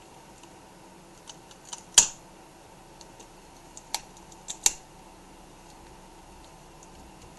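Scattered light clicks and taps of fingers working on the back of a laptop LCD panel while peeling up the tape that holds the display cable. The loudest click comes about two seconds in, and a few more follow between four and five seconds.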